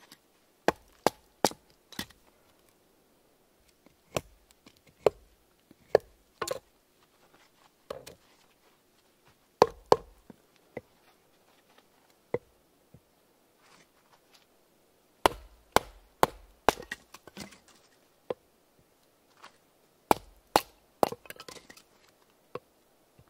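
Skrama bush knife chopping into upright sticks of wood, splitting kindling: sharp wooden chops, some in quick runs of three or four and others alone, with pauses of a few seconds between.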